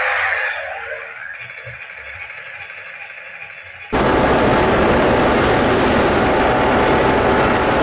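A battery-powered toy twin-rotor helicopter whirring with its rotors spinning, fading over the first few seconds. About four seconds in it gives way abruptly to a full-size turbine helicopter running close by: a loud, steady rush with a thin high whine.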